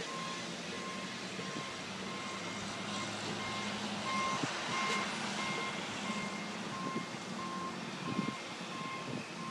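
A construction vehicle's reversing alarm beeping steadily, about two beeps a second, over wind noise and a low machinery hum.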